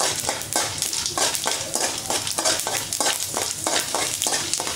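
Mustard seeds, cumin and chana dal sizzling in hot oil in a metal kadai, with frequent crackles, while a slotted spatula stirs and scrapes across the pan.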